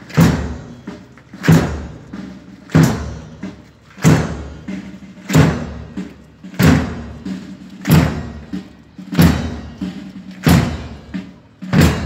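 Military marching band playing a slow funeral march: a loud drum beat about every 1.3 seconds, with brass holding low notes between the beats.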